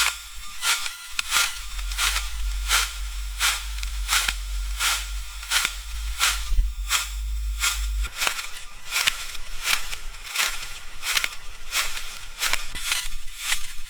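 Footsteps walking on leaves at a steady pace of about three steps every two seconds, each step a short, high crackle.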